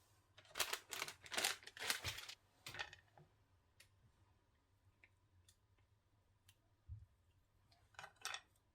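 Crinkling and rustling, several short bursts in the first three seconds and one more near the end, with a few small clicks and a soft knock in between.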